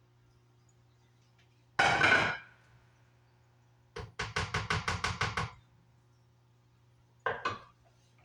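Kitchen utensils knocking on a container. A loud clatter comes first, then a quick, even run of about a dozen taps, about seven a second, then two more knocks near the end.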